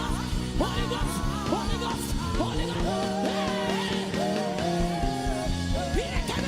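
Worship music: a lead melody of held notes with vibrato, sliding up into each new note, over a steady low bass accompaniment.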